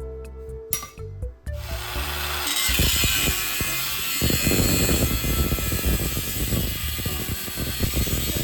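Power tool starting about a second and a half in and then running steadily, working a workpiece.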